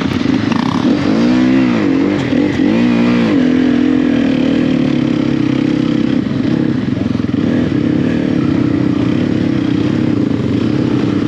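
Dirt bike engine revved up and down twice in the first few seconds, then running at a steady idle.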